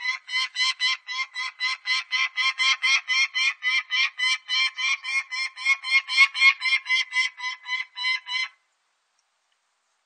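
Peregrine falcon cacking: a rapid, even run of harsh, repeated 'kak' calls, about four to five a second, that stops abruptly about eight and a half seconds in.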